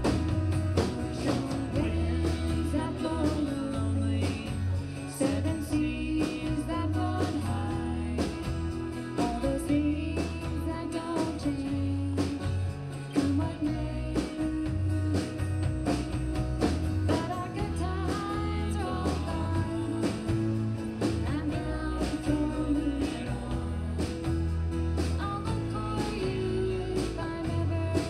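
Live country band playing: drum kit, electric bass and acoustic and electric guitars, with a melody line over the band.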